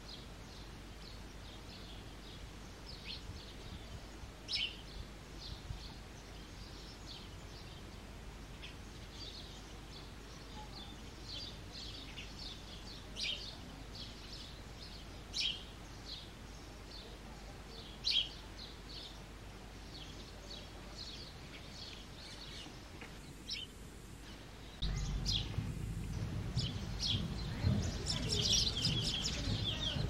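Male house sparrow chirping: short, high chirps repeated every second or so, a few louder than the rest. About 25 seconds in, a steady low rumble of background noise comes in, and the chirps come faster near the end.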